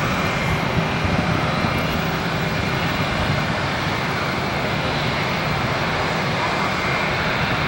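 Airbus A320 airliner's jet engines running as it rolls along the runway: a steady, even rush of engine noise.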